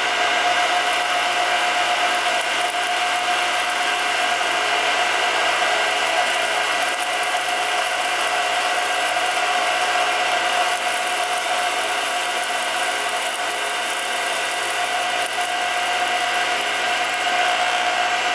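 Perforated-basket oil centrifuge running at full speed, its electric motor spinning the aluminium bowl: a steady whir with a constant whine held at one pitch.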